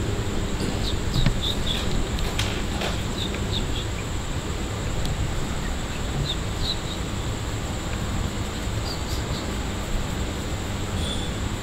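Steady background noise: a low rumble under a constant high-pitched whine, with a few faint short chirps scattered through.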